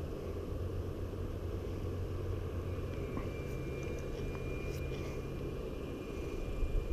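Steady low outdoor rumble, with a faint high steady tone joining about three seconds in.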